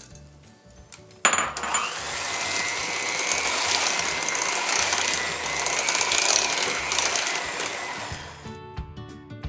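Black & Decker electric hand mixer switched on about a second in, running with a steady high whine while its beaters churn and rattle chocolate chips through cream cheese filling in a glass bowl; it stops near the end, leaving background music.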